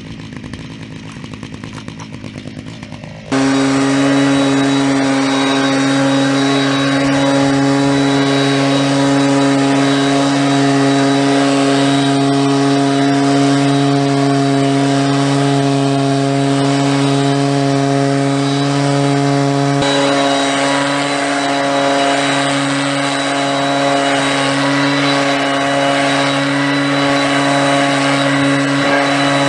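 Two-stroke engine of a backpack brush cutter fitted with a blower attachment, idling roughly, then opened up about three seconds in to a steady, loud full-throttle run.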